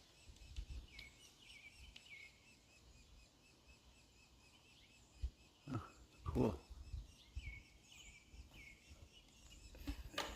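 Small birds chirping, short high calls repeated on and off, over a low outdoor rumble. A couple of louder, lower knocks or rustles come about six seconds in.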